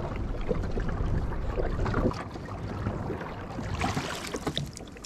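Water rushing and splashing along a pedal-drive kayak as it moves, with a low rumble that eases off about two seconds in.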